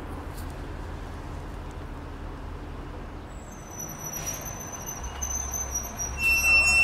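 A TTC city bus running over a steady low traffic rumble. From about halfway in comes high-pitched brake squeal with short hisses of air, loudest near the end.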